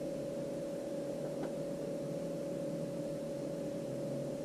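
A steady hum holding one constant tone over a low rumble, with a faint tick about a second and a half in.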